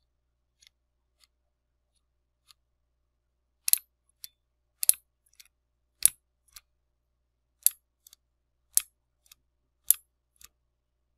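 A series of sharp, crisp clicks or snips, with fainter ticks at first and then six loud ones about a second apart from nearly four seconds in.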